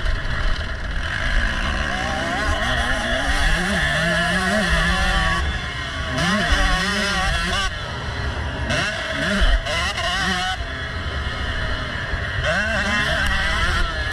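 Motocross bike engine revving, its pitch rising and falling again and again as it is ridden through the gears, heard from onboard the bike with wind rumbling on the microphone.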